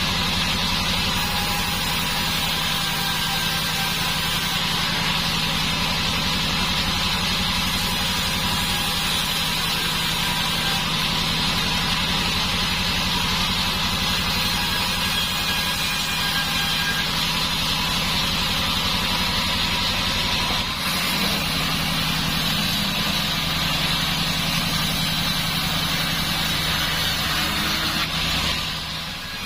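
Sawmill band saw running steadily: a constant machine drone with a high whine. The level dips briefly just before the end.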